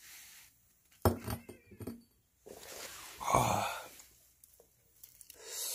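A stray cat meowing, one long drawn-out call a little past the middle, which is the loudest sound. About a second in there is a quick run of sharp clicks and crunches.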